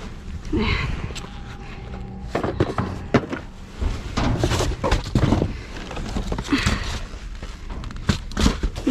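Cardboard boxes and foam packing being lifted, shoved and dropped in a dumpster: an irregular run of thunks and knocks with scraping and rustling of cardboard.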